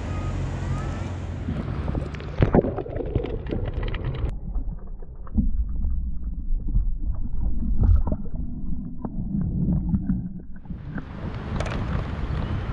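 Handling clicks as a bream is unhooked, then about four seconds in the sound suddenly goes dull and muffled as the camera goes underwater: low sloshing, gurgling and knocks of lake water while the fish is released. About ten seconds in it comes back up into the open air, with wind on the microphone.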